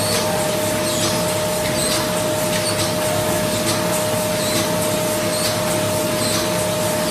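Automatic endpaper tipping machine running: a steady hiss and a constant hum tone, with a faint click about once a second as it cycles.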